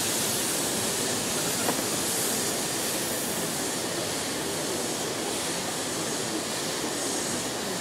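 Steam locomotive moving off slowly while shunting, a steady hiss of steam from its open cylinder drain cocks that fades gradually as it draws away.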